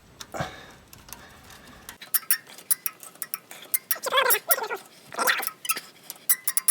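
Ratchet wrench clicking in short runs as a bolt is tightened, the bolt that locks a steering cylinder pin. Two short whining sounds come about four and five seconds in.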